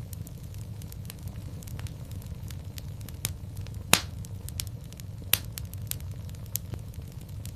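Wood fire crackling in a fireplace: a steady low rumble of the flames under scattered sharp pops and snaps. The loudest pop comes about four seconds in and another strong one a second and a half later.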